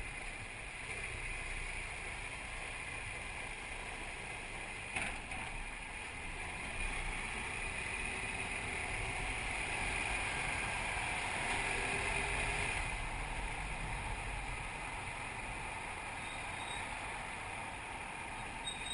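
BMW F650GS motorcycle riding slowly, its engine and road noise making a steady hum with no change in speed. A single knock sounds about five seconds in.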